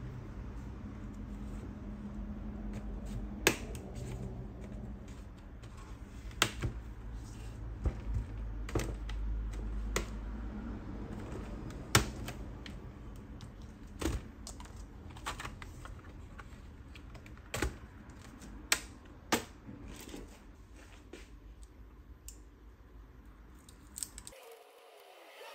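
Scattered sharp clicks and taps of a Phillips screwdriver and small screws against a laptop's bottom case as the base screws are undone, over low handling rumble.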